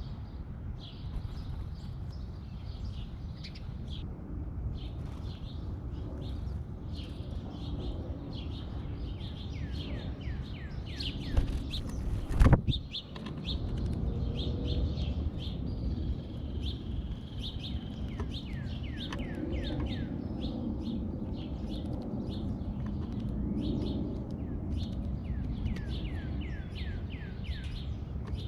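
Small songbirds chirping and calling, a run of short, quick downward chirps repeated throughout, over a steady low rumble. A single sharp knock sounds about halfway through.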